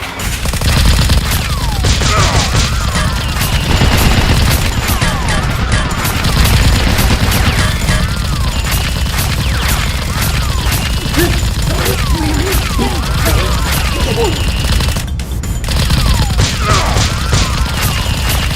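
Rapid, sustained gunfire sound effects, a dense fusillade, over background music, with a short break about two-thirds of the way through.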